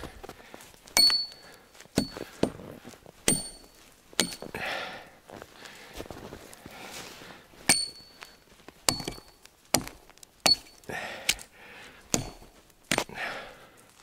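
Axe blows on a fallen log: about fourteen sharp, irregular chops, many with a brief high metallic ring from the axe head.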